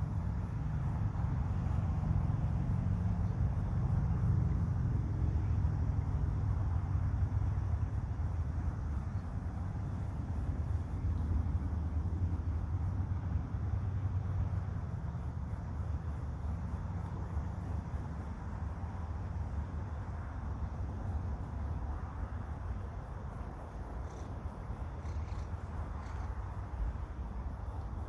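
Wind buffeting the microphone as a low rumble that eases off gradually, with insects chirping steadily in the high register.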